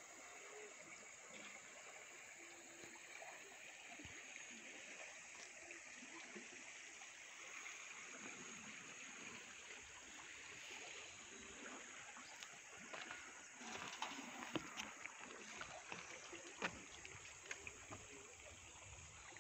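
Faint river water flowing, with a steady high hiss over it and a cluster of small knocks and splashes in the last third.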